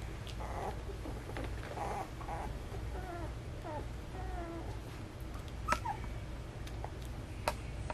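Young standard poodle puppies whimpering and squeaking in a string of short, wavering cries over a steady low hum, with two sharp clicks in the second half, the louder one near the end.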